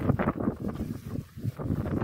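Wind buffeting the microphone in an uneven, rumbling rush that drops away briefly a little past the middle.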